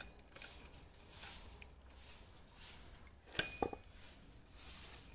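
A loose steel saw chain being handled and fitted around a chainsaw bar: its links clink and rattle, with a sharp metal clink just after the start and a louder, briefly ringing one about three and a half seconds in.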